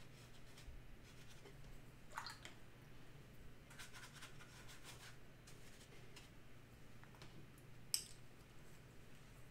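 Near-quiet room with faint scratches and light taps, and one sharper click about eight seconds in, over a low steady hum.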